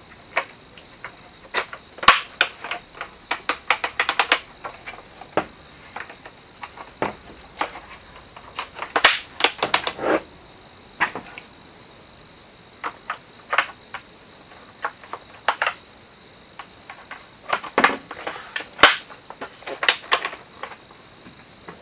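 Hard plastic toy parts of a Playmobil ambulance kit clicking and clattering as they are handled and pressed together, in irregular bursts of sharp clicks.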